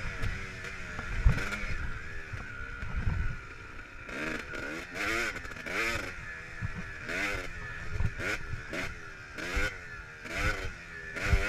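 Kawasaki KX250 dirt bike engine revving up and down over and over as it is ridden, its pitch climbing and dropping about once a second, with a few low thumps.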